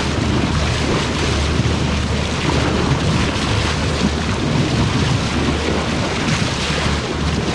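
Steady rush of water along a moving boat's hull and wind on the microphone, over the low steady drone of the outboard engine.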